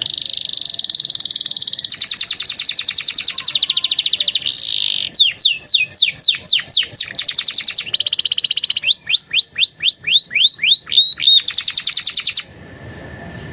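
Domestic canary singing a fast, loud song with phrases learned from ciblek and prenjak: rapid buzzy trills, then a run of quick downward-sweeping whistles and a series of hooked notes. The song breaks off abruptly about twelve seconds in.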